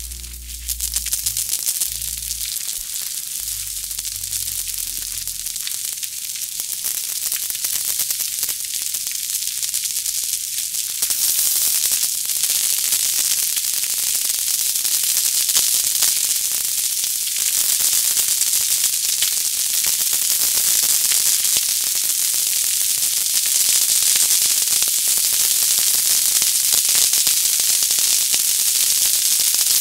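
Many fireworks crackling and banging at once, layered into a dense, continuous crackling hiss. It grows steadily louder and thicker, with a step up about eleven seconds in.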